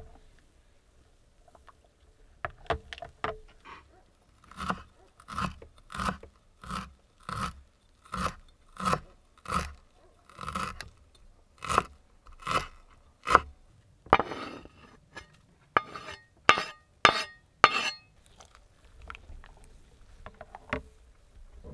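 Kitchen knife chopping fresh dill on a wooden cutting board: steady chops about every two-thirds of a second, then a stretch of scraping and a few last, sharper chops.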